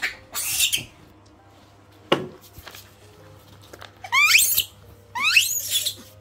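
Two high squeaks about a second apart, each a quick run of upward-sliding pitches. Before them there is rustling at the start and a soft knock about two seconds in.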